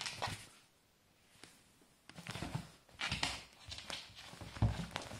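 A kitten scuffling with a rug on a wooden floor: repeated bursts of scratchy scrabbling and rustling as its paws and claws work the rug, with soft thumps, the loudest one near the end.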